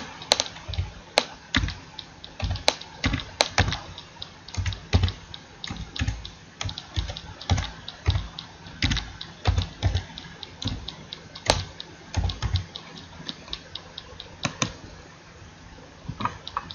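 Typing on a computer keyboard: irregular key clicks, several a second, growing sparser near the end.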